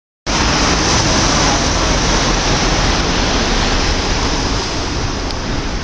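Wind buffeting the microphone: a loud, steady rushing noise that cuts in suddenly right at the start.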